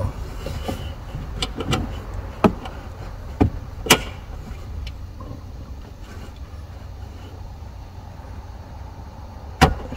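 A few sharp, separate clicks and knocks of hand tools working on a car's 12-volt battery during its replacement, over a steady low rumble.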